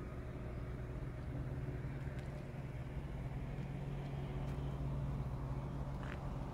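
Motorhome engine running steadily as the vehicle drives off at low speed, a low even hum that swells slightly about five seconds in.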